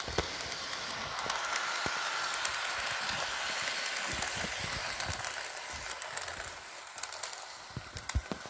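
HO scale model freight train, a Kato EMD GP35 diesel locomotive pulling a boxcar and a covered hopper, rolling past on sectional track. Its wheels rumble and click over the track, and the sound swells as the cars pass close by, then fades as they move away.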